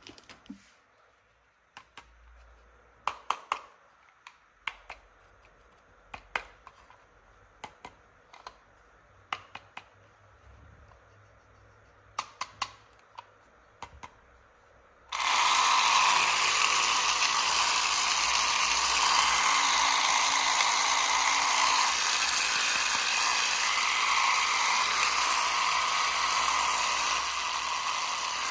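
Light clicks and taps of plastic toy pieces being handled. About halfway through, a small battery-powered toy motor switches on abruptly and runs steadily and loudly.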